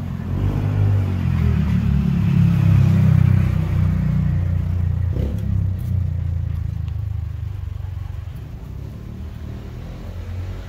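A vehicle engine revving up over the first couple of seconds, loudest about three seconds in, then running on and slowly fading. There is a single short thump about five seconds in.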